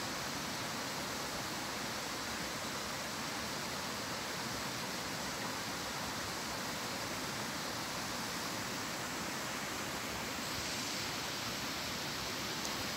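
A stream running, a steady, unbroken rush of water.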